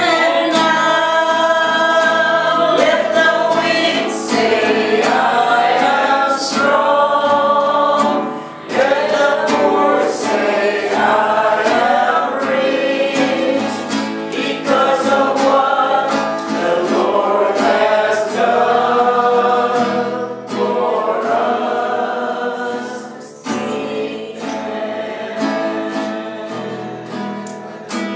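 A small group of voices singing a gospel worship song to a strummed acoustic guitar.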